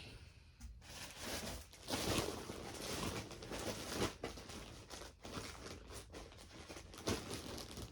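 Irregular rustling and crinkling as clothing and plastic packaging are handled and unfolded.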